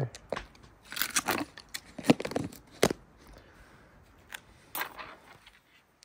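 Irregular scrapes and crunches of a stick raking up leftover seed-and-corn bird-food mix, a handful of sharp strokes in the first three seconds, then sparser and fainter.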